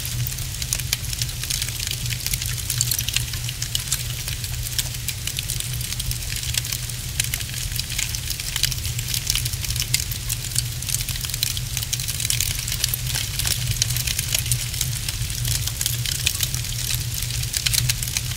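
Wood fire crackling steadily, with dense, irregular small pops and snaps over a steady low rumble.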